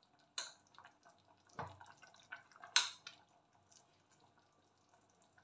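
A metal spoon stirring wet pounded cassava leaves in an open pressure-cooker pot, with three sharp clinks against the pot in the first three seconds, the last one the loudest.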